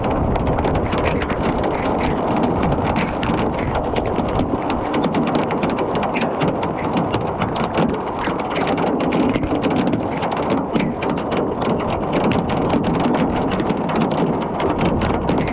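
Hail storm: hailstones falling and striking surfaces in a steady, dense patter of many small hits.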